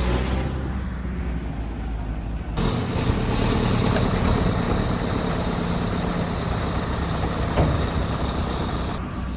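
A backhoe's diesel engine running steadily. About two and a half seconds in, the sound changes suddenly and grows louder and fuller, and there is a single short knock near the end.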